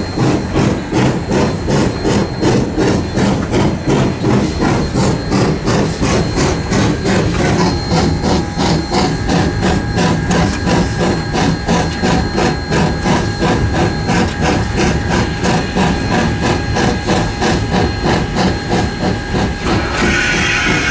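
Coal-fired steam locomotive working under way, its exhaust chuffing in a steady, rapid beat, heard from inside the cab. A steam hiss joins near the end.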